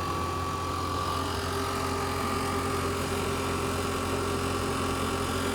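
Propane heater's blower motor running steadily with a low hum, just powered back up after a loose wire was reconnected; a thin high whine on top fades out about a second in.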